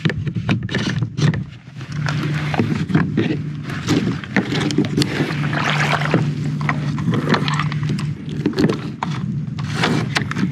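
Inflatable paddle board being handled and slid into shallow water at a gravelly shore: scrapes and knocks against the board, footsteps on gravel and sloshing water. A steady low hum runs through the middle few seconds.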